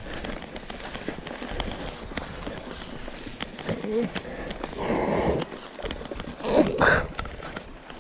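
Mountain bike rolling over a rough trail, with a steady clatter of small knocks and rattles. Short bursts of a rider's voice come in about four, five and seven seconds in.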